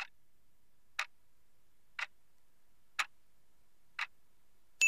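Countdown timer sound effect: five clock ticks, one a second. Near the end a bell ding sounds, louder than the ticks, and rings on with a single high tone as the answer time runs out.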